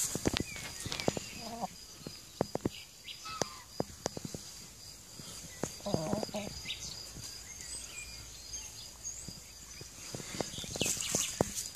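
Brahma chickens calling in their pen: a few short clucks about one and a half seconds in and a longer, lower call about six seconds in, among scattered light clicks and a faint steady high-pitched hum.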